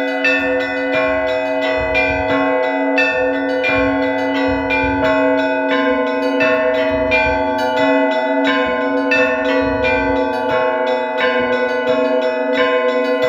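Orthodox church bells ringing: several bells of different pitches struck in quick, continuous succession, their tones ringing on and overlapping under a steady low hum from the largest bell.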